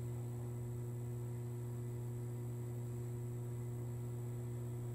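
Steady electrical mains hum over faint hiss, unchanging, with no other sound.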